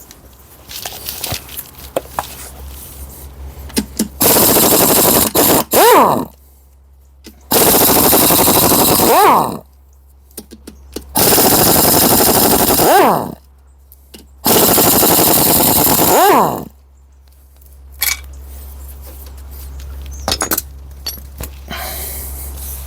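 Impact wrench hammering out bolts on a gearbox casing in four bursts of about two seconds each, each burst ending as the tool's motor winds down.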